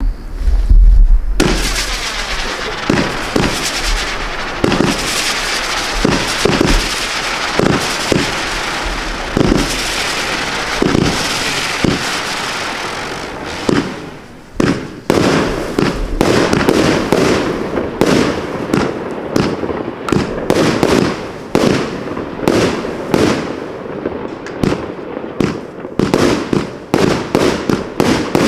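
Consumer firework 'Giant Lizard' going off: a loud rushing hiss with repeated thumps for about the first fourteen seconds, then a fast run of sharp cracks and bangs, several a second.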